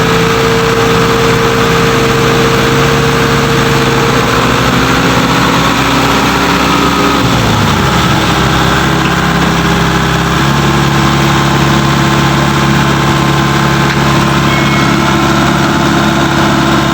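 Heavy diesel engine of earthmoving equipment running. Its pitch drops sharply about seven seconds in as it slows, then holds steady at a lower speed.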